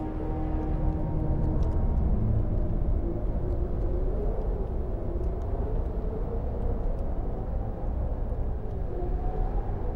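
A steady low rumble with a faint wavering tone drifting above it, a film's ambient sound bed.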